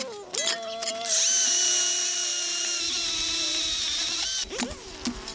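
Cordless electric DeWalt 12-inch chainsaw's motor whining at full speed. It kicks up loudly about a second in, holds a steady high whine for about three seconds, then winds down.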